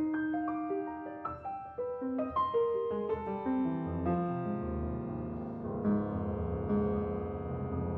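Solo piano playing a quick run of single notes, which gives way about four seconds in to sustained ringing chords over a held low bass.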